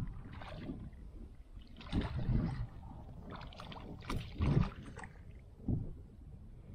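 A small hooked fish splashing and thrashing at the surface of a shallow creek as it is reeled in and lifted out, in irregular splashy bursts over a steady hiss of running water.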